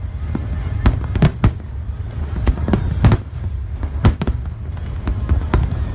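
Fireworks going off: a rapid, irregular series of sharp bangs and cracks, about a dozen, over a continuous low rumble from the barrage.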